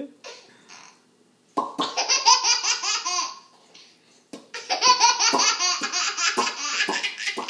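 Baby laughing hard in two long bouts of rapid, high-pitched belly laughs: the first starts about a second and a half in, the second about four and a half seconds in, with a short pause between them.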